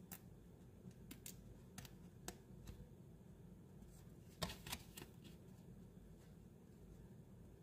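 Faint clicks and rustles of a worn Pokémon trading card being handled between the fingers, with a short cluster of louder clicks about halfway through as the card is turned face up.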